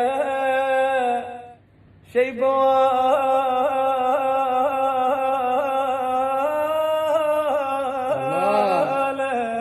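A man singing unaccompanied in long, drawn-out held notes. One note breaks off about a second and a half in; after a short gap a second long note is held through to the end, with a brief arching slide in pitch near the end.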